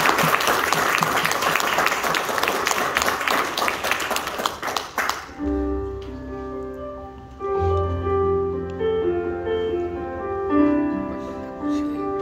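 Audience applauding, which stops about five seconds in; then a keyboard begins playing slow, held chords with a low bass note underneath.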